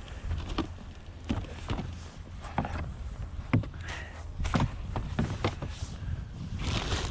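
Irregular knocks and clunks of hard objects being handled, about a dozen of them, the loudest about three and a half seconds in, over a steady low rumble.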